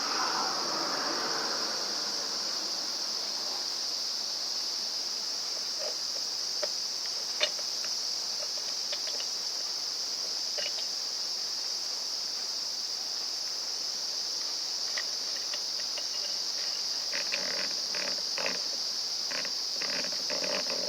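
A steady, high-pitched insect chorus with no break. Over it come scattered small clicks, a sharp click about seven seconds in, and a run of knocks and rattles near the end.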